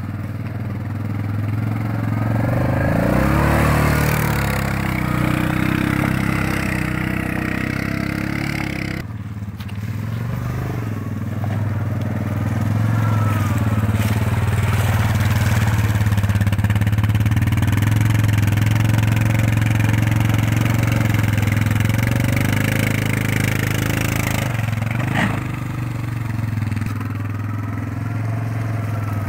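ATV engine running and revving as the quad drives through mud. The engine revs up about three seconds in, and the sound shifts abruptly twice, once about nine seconds in and once near the end.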